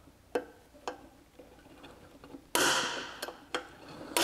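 Light clicks and taps of a dash display's housing being shifted against a dash panel, with two short scratchy scrapes, one about two and a half seconds in and one near the end, as a mounting-hole spot is marked.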